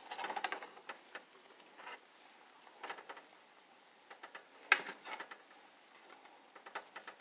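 Light, scattered clicks and taps of a spatula and a metal spoon against a nonstick skillet as a quesadilla is pressed down in it, with one sharper click about five seconds in.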